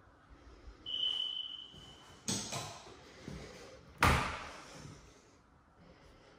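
Doors being handled: a brief high squeak with a rubbing slide about a second in, a sharp knock, then a louder clack about four seconds in as a lever-handled closet door is opened.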